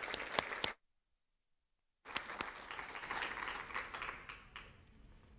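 Audience applauding, with many sharp claps in a dense patter. The sound cuts out completely for about a second near the start, then the applause resumes and dies away toward the end.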